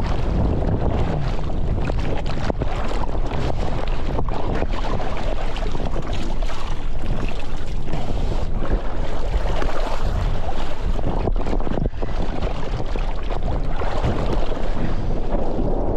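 Steady, loud wind buffeting a GoPro's microphone, over the rush of water under a windsurf board as it sails through the waves.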